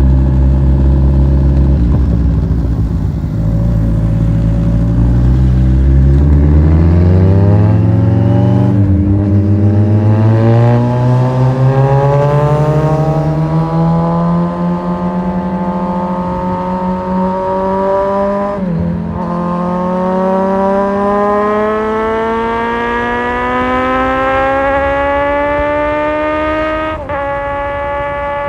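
Kawasaki Z1000's inline-four engine accelerating under a rider, its pitch climbing steadily in each gear and dropping briefly at three upshifts, about 9, 19 and 27 seconds in, then holding steady.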